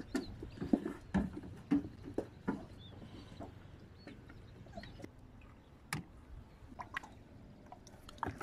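Water lapping and dripping against an inflatable dinghy's hull, with scattered light knocks and taps, more of them in the first few seconds, and a sharp click about six seconds in.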